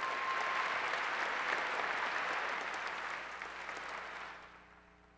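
Crowd applauding, starting abruptly, holding steady for about four seconds, then dying away.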